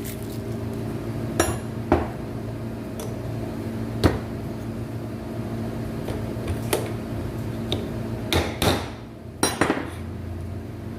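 About eight irregular hammer taps, some with a short metallic ring, as a new bearing is knocked onto the rotor shaft of a window air conditioner's fan motor.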